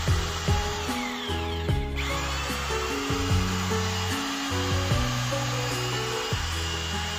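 Electric drill with a paddle mixer running steadily, churning tile adhesive in a plastic bucket, over background music with a moving bassline.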